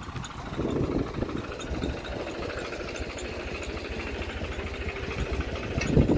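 Engine idling with an even, low pulsing beat, and a single knock near the end.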